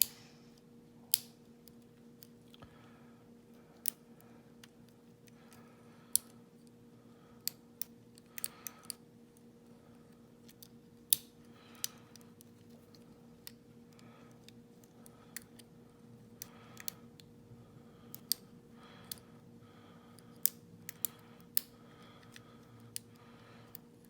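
Small, sharp, irregular clicks of a lock pick and tension wrench working the pins of an all-brass Federal padlock, with the core held in a false set. A steady low hum runs underneath.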